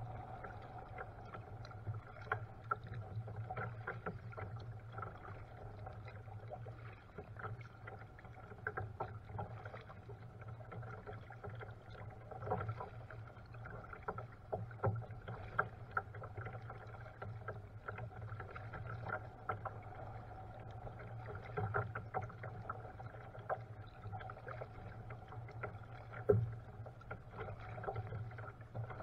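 Kayak on a river: small irregular splashes and knocks of paddle and water against the hull, over a steady low hum, with one sharper knock near the end.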